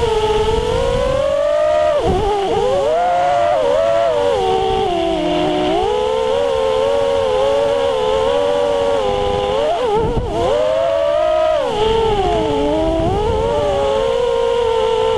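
Brushless motors and propellers of an FPV racing quadcopter (Novak Breeze motors on a Voodoo 210 frame) whining as it flies. The pitch swoops down and back up again and again with throttle, dropping sharply about two seconds in and again near ten seconds, over a rush of air.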